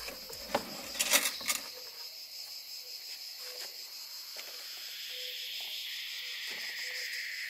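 Crickets chirping steadily, with a few sharp knocks and a short clatter about a second in. A hiss swells in from about halfway.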